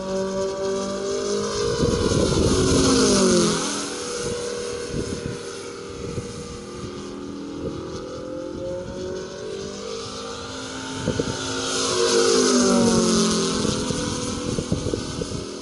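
Moki S180 five-cylinder gasoline radial engine of a large RC La-7 warbird running at speed as the model flies past twice, its pitch dropping as it passes, loudest about two to three seconds in and again near twelve seconds in. Wind rumbles on the microphone underneath.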